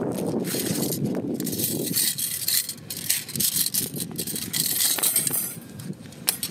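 Thin stainless steel panels of a compact folding grill rattling, clinking and scraping against each other as they are handled, in irregular bursts.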